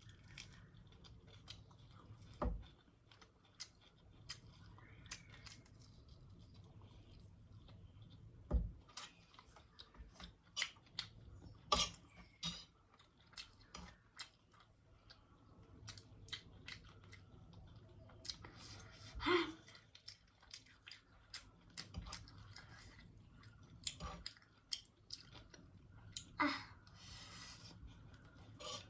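Close-up eating sounds of instant noodles being chewed: irregular wet mouth clicks and smacks, with a few louder knocks scattered through.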